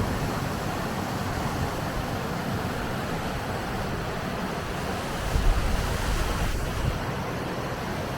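Steady rush of a fast river pouring through a rocky gorge, with a brief gust of wind on the microphone about five seconds in.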